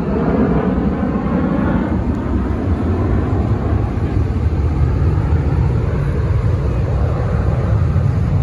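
Jet engine roar from a six-jet fighter formation flying a smoke-trailing pass, heard as a steady low rumble.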